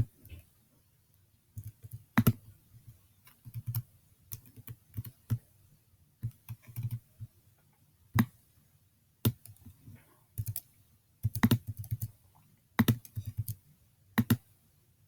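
Computer keyboard and mouse clicking irregularly, in short runs of keystrokes with several louder single clicks.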